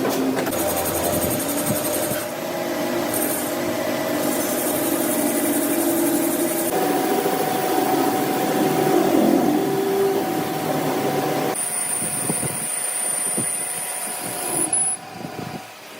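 Workshop machine tools running steadily, in several segments whose sound changes abruptly from one to the next, with a sharp drop just before the end.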